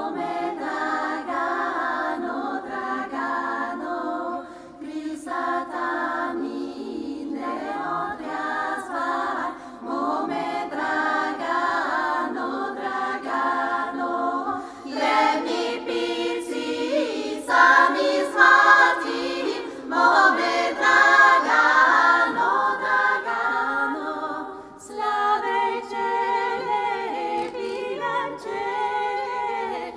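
Women's vocal ensemble singing a Bulgarian folk song a cappella in several parts at once, in phrases broken by short pauses for breath. The loudest, highest-pitched passage comes a little past the middle.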